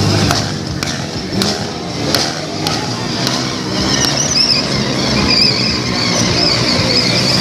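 Motorcycle engine revving during stunt riding, rising and falling in pitch and loudness as the rider works the throttle.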